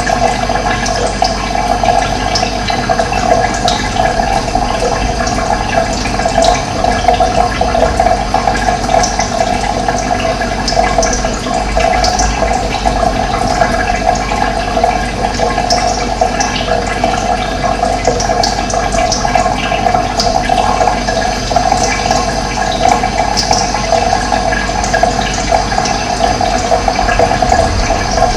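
Steady rush of running water, with short high bird chirps here and there over it.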